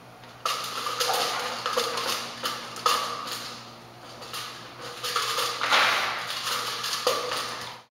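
A chimpanzee handling a hanging hollow plastic boat buoy and the rope and paper tied to it: a string of knocks, scrapes and rustles, some ringing briefly. The first loud knock comes about half a second in.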